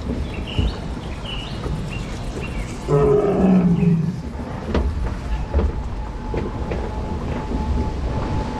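Recorded dinosaur roars from the ride's theming, loudest about three to four seconds in, over the steady low rumble of the ride boat moving through the water.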